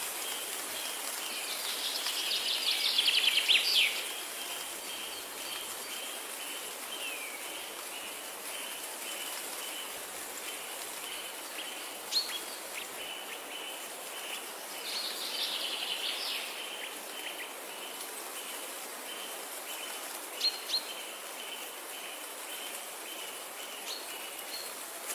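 Wild birds calling: two loud rapid trills, one near the start and one midway, and a few short sharp chirps, over a steady high pulsing chirp and a constant background hiss.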